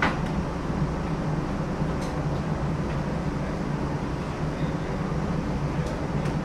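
New Orleans streetcar running along its rails: a steady low hum and rumble, with a sharp click at the very start and a few faint knocks later on.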